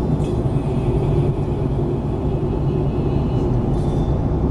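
Steady low drone of a moving car's engine and tyre noise, heard from inside the cabin.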